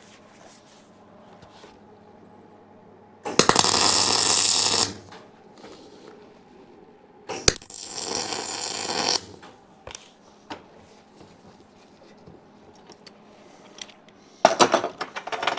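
MIG welder arc crackling in three short welds a few seconds apart, the last one shorter, tacking a weld nut onto a steel foot plate.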